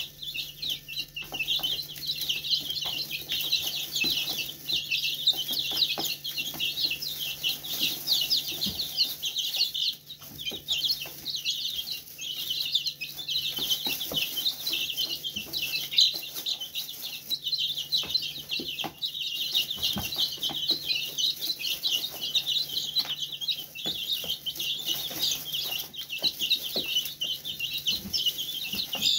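A flock of young chicks peeping continuously, many short high chirps overlapping, with scattered soft taps and rustles in the hay as they peck and scratch.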